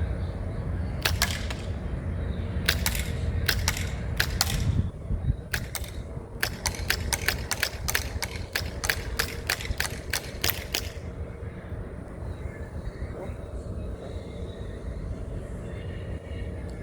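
Glock 19 CO2 BB pistol firing a long string of shots: a few spaced pairs, then a fast, even run at about three a second that stops abruptly, with the CO2 cartridge running low.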